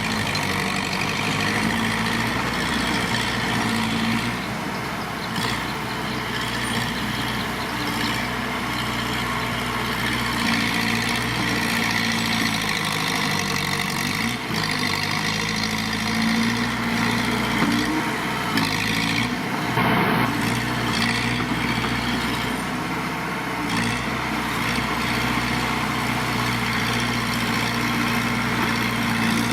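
Diesel engine of heavy earthmoving machinery running steadily, its pitch and load shifting slightly now and then.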